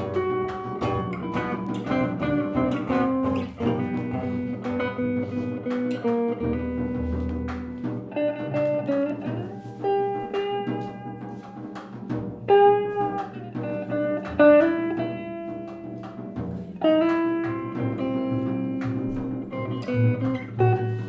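Improvised instrumental music led by plucked guitar, a steady flow of picked notes with occasional low bass notes underneath.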